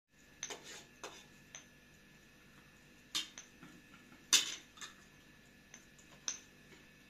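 Spoons clinking against plates during a meal: a handful of scattered clinks, the loudest a little past the middle.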